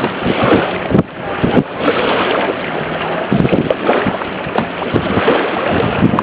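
Wind buffeting the microphone over the rush of water around a small boat under way, loud and uneven in gusts.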